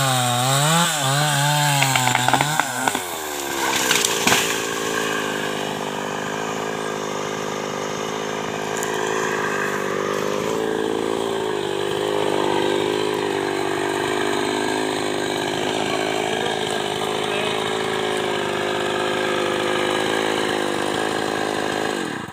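Small New West chainsaw cutting into a tree trunk, its engine pitch rising and falling about once a second as it bogs in the wood. From about four seconds in it runs at a steady, even pitch, idling while not cutting.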